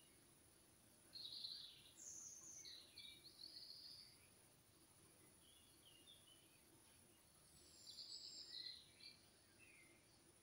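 Faint songbird chirps and short song phrases, one group from about a second in to about four seconds in and another about eight seconds in, over a steady faint high hiss.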